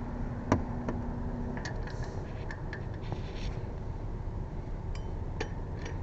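Light metallic clinks and knocks of tyre-changing tools being handled, with one sharper knock about half a second in and scattered clinks after, over a steady low rumble. A steady hum stops about one and a half seconds in.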